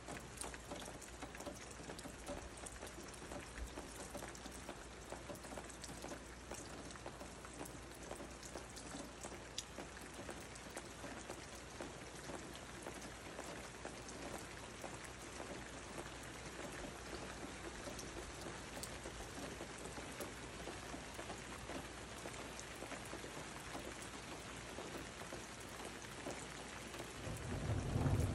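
Steady rain falling, with scattered sharp ticks of single drops close by. Near the end a low rumble of thunder begins and swells quickly.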